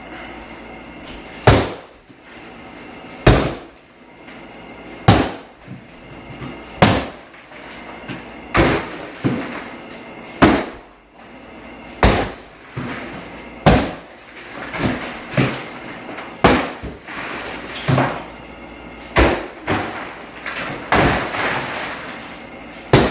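Repeated heavy blows against an interior wall being demolished, about a dozen sharp strikes, one every second and a half to two seconds.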